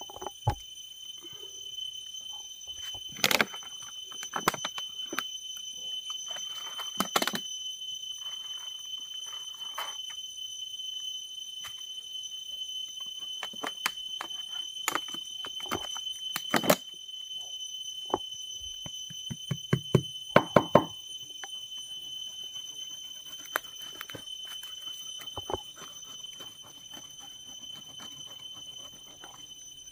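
A steady high-pitched whine, two pure tones, holds under scattered sharp knocks, taps and dry rustles from hands working bunched dry bamboo strips, a plastic water bottle and a knife.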